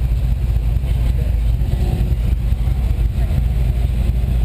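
Classic cars' engines running at low speed in a slow-moving line, a deep, steady rumble with no let-up.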